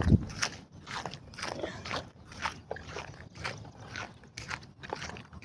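Footsteps on wet ground at a steady walking pace, about two crunchy steps a second, with a heavier thump right at the start.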